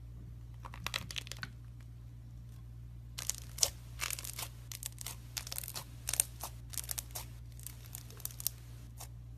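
Slime being worked by hand, giving off bursts of rapid crackling and popping: a short burst about a second in, then a longer run from about three seconds to near the end.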